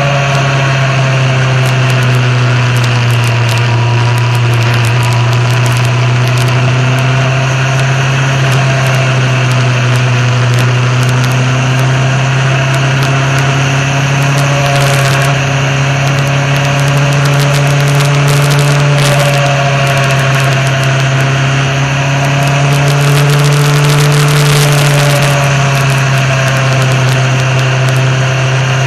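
Motorcycle engine running steadily under way, with a strong low note that rises and falls slightly in pitch. Wind rush and road noise come through close to the bike's fairing.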